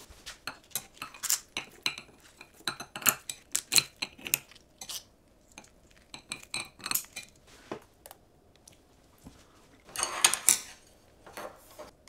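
Metal kitchen scissors and metal chopsticks clicking and clinking against a ceramic plate while a crisp pan-fried rice-paper patty is cut into pieces, with a longer, louder rasp about ten seconds in.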